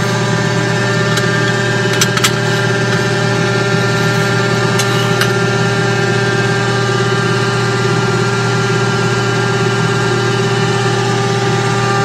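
Old ironworker's electric motor running with a steady hum, with a few light clicks about two seconds in.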